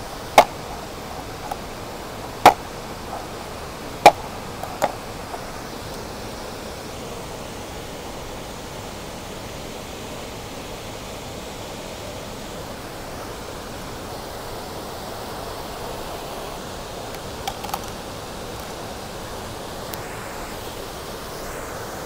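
Steady rush of a shallow river running over stones. Three loud, sharp knocks on a plastic cutting board about two seconds apart early on, then a softer one, from crayfish being cut and handled on the board; a few faint clicks later.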